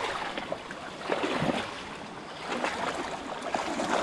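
Rushing stream water, a steady wash of noise broken by irregular small splashes and clicks.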